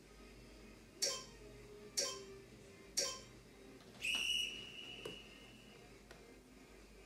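Electronic countdown timer: three short beeps a second apart, then one longer, higher beep, the usual signal that a timed interval is up.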